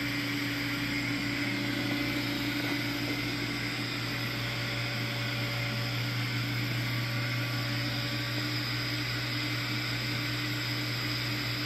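Reef aquarium's sump equipment, the pumps and protein skimmer, running with a steady low hum and an even hiss.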